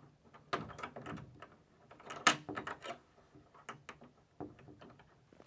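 Slow, irregular footsteps on a forest floor, each step a cluster of small crackles from dry leaves and twigs underfoot, the sharpest crunch about two seconds in.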